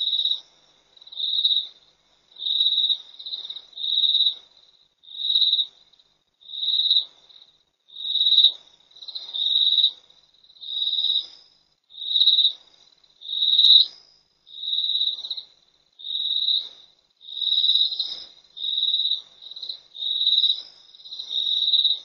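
A small animal calling through the night: high-pitched chirps, each about half a second long and steady in pitch, repeating roughly once a second.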